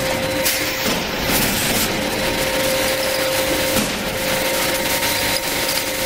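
Automatic bottle labeling machine running: a steady mechanical hum with a constant motor whine as the conveyor carries bottles past the labeling head, with a few faint knocks.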